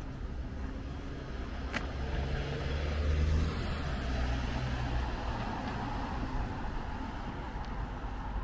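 A car drives past close by on the street. Its low engine rumble swells to a peak about three seconds in, and its tyre noise rises and then slowly fades. There is one sharp click about two seconds in.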